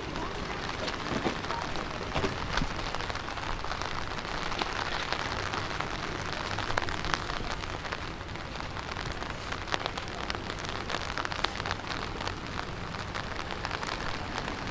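Steady outdoor noise with a dense scatter of faint ticks and taps, like rain falling on hard surfaces. There is no bell or tone.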